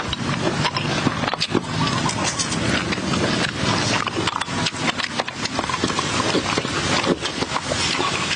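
Close-up eating sounds of a man eating snails and papaya salad: chewing, slurping and lip-smacking, with many quick sharp clicks.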